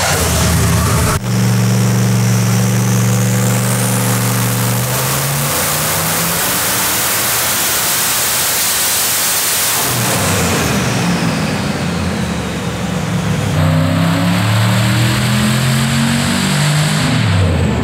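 Twin-turbo Ford Windsor stroker V8 running on a hub dyno. It holds a steady engine speed, then climbs into a loud full-throttle pull with a high whine rising over it. About ten seconds in it comes off the pull, the whine falls away, and the engine revs up again in short steps.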